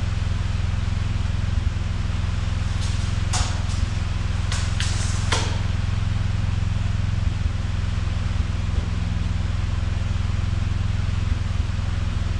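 A machine running steadily with a low, even hum and a broad hiss over it. Several sharp clicks or light knocks come in a cluster a few seconds in.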